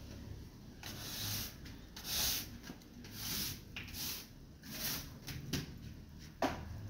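Soil and dry leaves scraped and rustled into a potted plant: about five hissy strokes roughly a second apart, then a sharp knock near the end.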